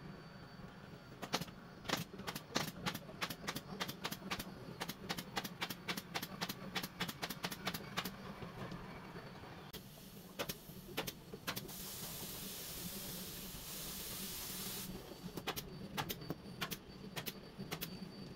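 Pneumatic upholstery staple gun firing in quick runs of sharp clicks, about four a second, as fabric is stapled to the sofa frame. A steady hiss of about three seconds comes midway, with more staples fired near the end.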